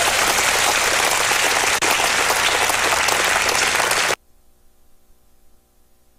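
Large crowd applauding loudly and steadily. The applause cuts off abruptly about four seconds in, leaving only a faint steady hum.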